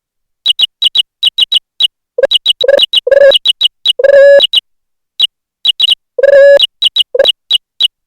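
Synthetic sound effects from the Jingle Keyboard program, fired by keystrokes and mouse clicks. Short high electronic beeps come in a quick, irregular string, about two to three a second. Mixed in are half a dozen longer, lower beeps, the longest lasting about half a second.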